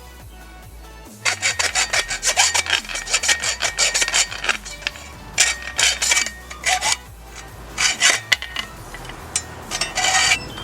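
Quick back-and-forth strokes of a hand tool rasping on metal. They start about a second in and come in several bursts with short pauses.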